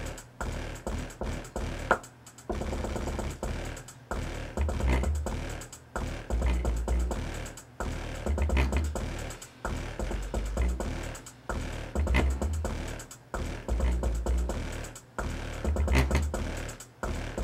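Realistic Mach 2 15-inch woofer, unmounted in free air, playing bass-heavy music: deep bass notes pulse in a repeating pattern, with thinner music over them.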